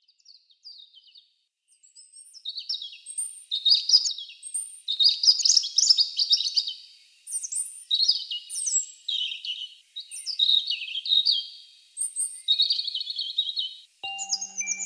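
European robin singing: high phrases of quick, changing notes, each about one to two seconds long with short pauses between. Music starts near the end.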